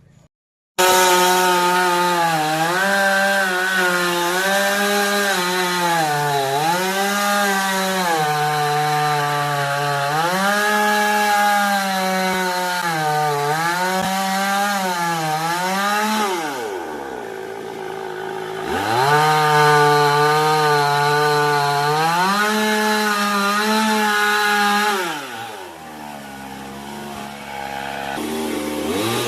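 Chainsaw running hard, its engine pitch sagging and recovering over and over as it cuts wood. It drops back toward idle about two-thirds of the way through and again near the end, then revs up once more.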